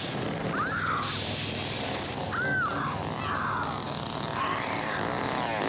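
A woman screaming in short rising-and-falling cries over a steady engine drone, a couple of times early on and again near the end.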